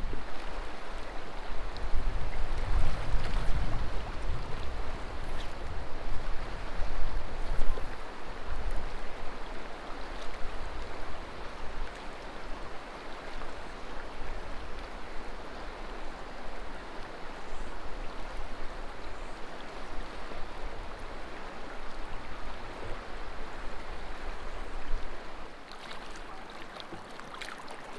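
River water rushing steadily over stones, with a low rumble of wind on the microphone during the first several seconds.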